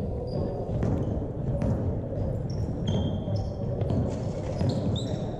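Basketball game in play: sneakers squeak on the court in many short, high chirps, the ball bounces a few times, and players' voices murmur underneath.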